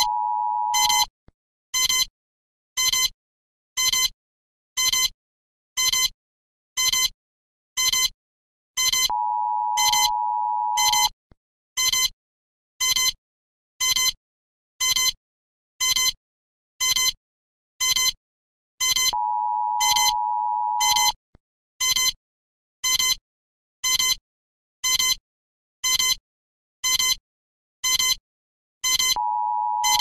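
Emergency alert alarm tone: short, sharp electronic beeps repeating about once a second, broken about every ten seconds by a steady two-note tone that holds for about two seconds before the beeps resume.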